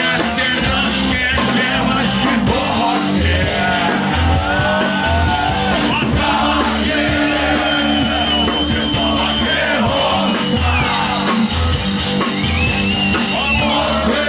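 Live punk rock band playing a song: bass and drums keep a steady beat while a singer's voice carries long held, wavering notes over the band.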